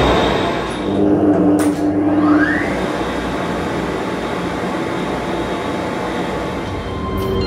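Machinery of a 1964 Gebauer hydraulic lift: a relay contactor clicks about a second and a half in, a short rising whine follows, and then the electric motor and pump of the hydraulic power unit run with a steady whir.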